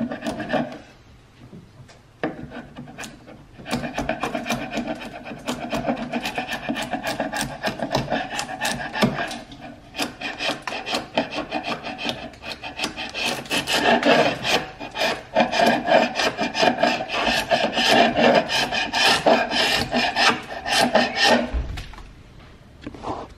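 Sharp wood chisel scraping paint off varnished hardwood door trim in rapid, short, rasping strokes, with a couple of brief pauses. The paint is coming away cleanly because it was laid straight over the old varnish without sanding.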